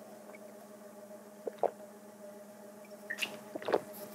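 Two people drinking from glasses: faint gulps and swallows over a steady low room hum, with a few light clicks near the end.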